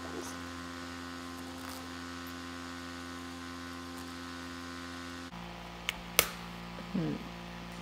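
Steady low electrical hum. About six seconds in come two sharp clicks as a clear plastic rhinestone organizer case is handled, followed by a brief voiced murmur.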